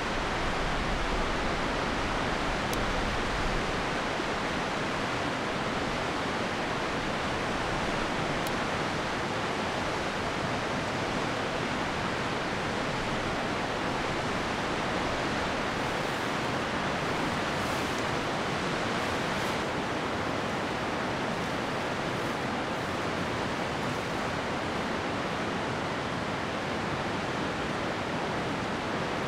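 Steady rush of river rapids, an even roar of white water that does not let up.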